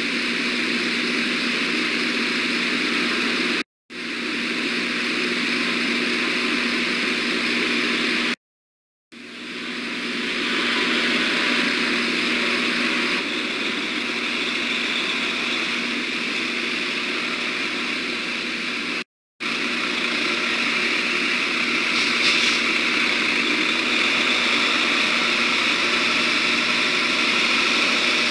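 Steady rushing background noise with a low hum from an outdoor nest-camera microphone. The sound cuts out completely three times for a moment and swells back in after each gap.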